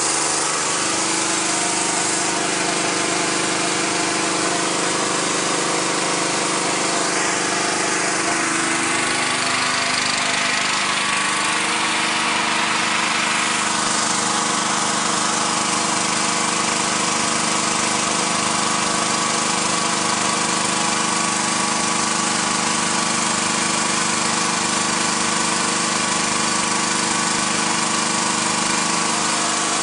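Small 3 kW generator's 6.5 hp engine running steadily with a load plugged into its outlet. About eight to ten seconds in, its pitch shifts slightly, then it holds a steady speed.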